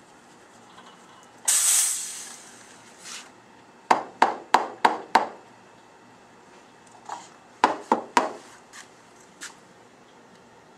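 Espresso machine steam wand giving a short burst of steam hiss, then sharp metallic knocks on metal: five quick ones, about three a second, and a few more a couple of seconds later.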